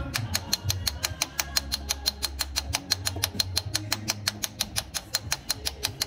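A hammer tapping a stuck diesel injector in a Mercedes OM647 engine's cylinder head, knocking it sideways back and forth to work it loose. The taps are rapid and even, about eight a second.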